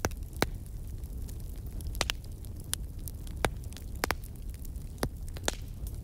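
Crackling fire: irregular sharp snaps and pops over a low rumble.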